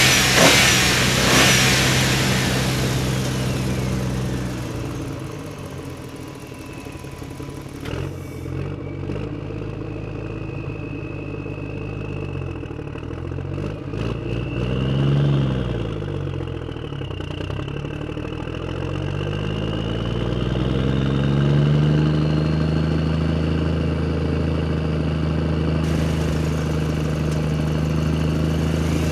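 A vehicle engine running and revving, its pitch rising and falling several times before settling into a steady run, with a loud noisy burst in the first two seconds.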